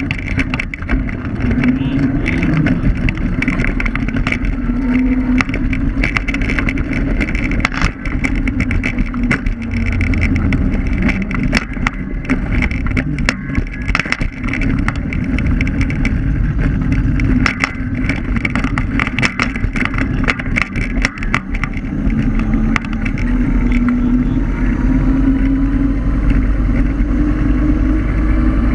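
Electric scooter ride heard from a low-mounted camera: continuous rumble of tyres on the road and wind, with many short rattling knocks over rough pavement through the middle. A motor hum rises steadily in pitch near the end as the scooter speeds up.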